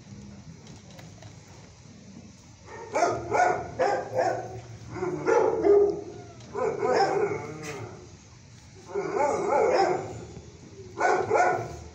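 Dogs barking in several bursts: quick barks from about three to four and a half seconds in, longer drawn-out barks around five to seven and nine to ten seconds, and another short run near the end.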